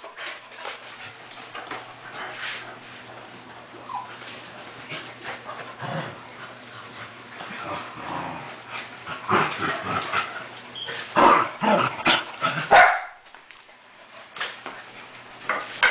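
Dogs play-fighting, barking and yipping in irregular bursts that are busiest in the second half, over a steady low hum.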